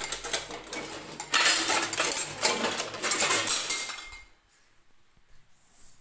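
Metal spoons and dishes clattering as a spoon is taken from among the utensils, in two spells with a short lull about a second in, stopping about four seconds in.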